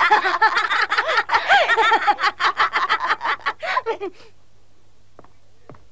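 Boys laughing together in a quick run of ha-ha pulses, stopping about four seconds in; a couple of faint taps follow near the end.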